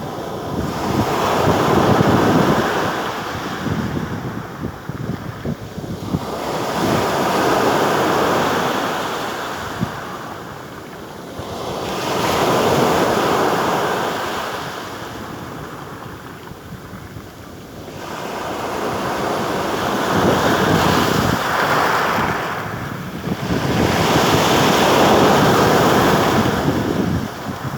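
Sea waves breaking on the shore, surging in about every five to six seconds and falling back between, with wind buffeting the microphone.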